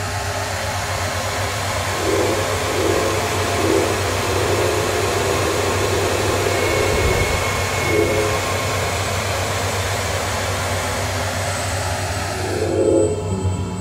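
Experimental ensemble improvisation: a dense, steady wash of rushing noise that falls away near the end. Several short low pitched notes poke through, the loudest near the end, over a steady low hum.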